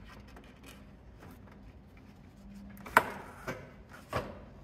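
Hard plastic knocks, taps and rubbing as an OEM Lexus IS F radiator is worked by hand into place against the thermostat housing, hoses and clamps. One sharp knock about three seconds in and two smaller ones after it.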